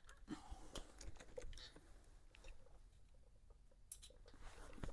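Near silence broken by faint, scattered light clicks and taps of small metal engine parts being handled by hand.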